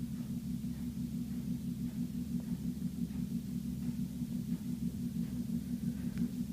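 Low, steady drilling-like rumble and hum carried through a house wall, picked up with a phone pressed against the wall and bass-boosted; its source is unidentified.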